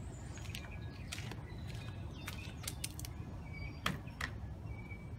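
Scattered light clicks and creaks as the stoker pedal of a tandem bicycle, fitted with a zip-tied wooden block, is handled and turned by hand, about eight irregular clicks over a few seconds.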